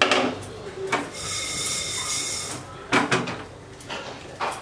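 Knocks of a metal pot and utensils on a gas stove. In the middle, moong dal is poured into the dry pot, a rushing rattle of grains lasting about a second and a half that makes the pot ring.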